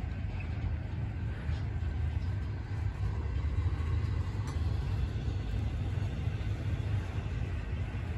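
Long intermodal container freight train rolling past: a steady low rumble of the cars on the rails.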